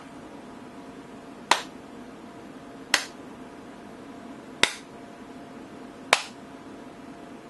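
Four sharp finger snaps, about one and a half seconds apart.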